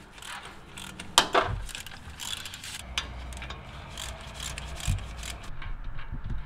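Hand ratchet clicking in rapid runs as the wheel hub's mounting bolts are run in from behind a Jeep Wrangler JK steering knuckle, with a sharp metal clank about a second in.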